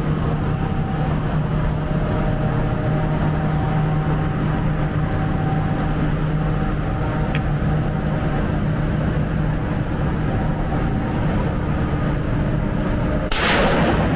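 Steady low mechanical hum with several held tones over it. Near the end, a short loud burst of noise cuts in.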